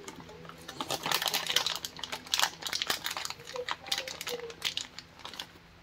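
French bulldog eating a treat from a bowl close up, chewing with a rapid, irregular run of crunchy clicks that thins out near the end.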